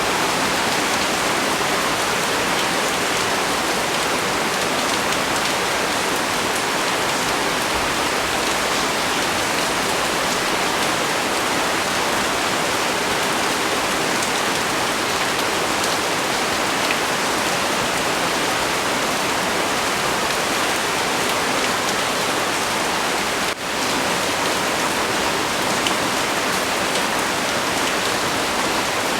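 Heavy rain pouring down steadily, a dense, even wash of drops with no let-up; the level dips for a split second about three-quarters of the way through.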